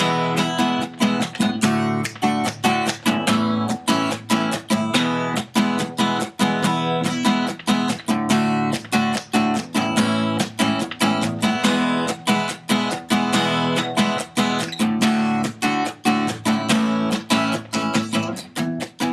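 Acoustic guitar strummed in a steady, even rhythm, about four strums a second, with no singing yet: the instrumental intro of the song.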